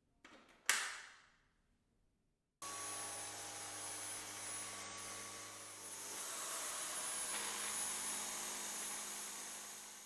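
A sharp click, then about two and a half seconds in a Dyson Cyclone V10 cordless vacuum's motor starts abruptly and runs steadily, a whine over rushing air, growing a little louder about halfway and fading at the end.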